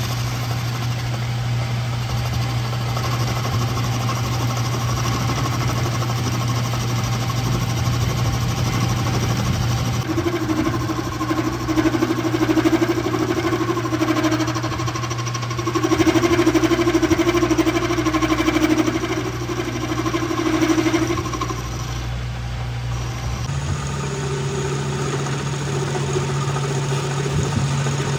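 Metal lathe running with a steady motor hum as its cutting tool turns down the end of a steel CV-joint axle shaft. Two louder stretches of cutting come in the middle, and the hum steps slightly higher near the end.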